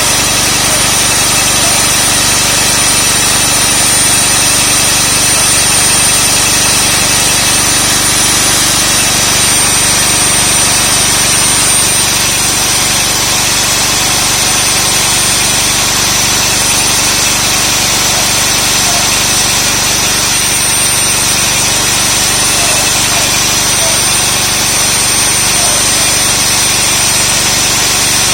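Concrete core drill running steadily, a continuous loud machine noise with a constant high whine over a low hum.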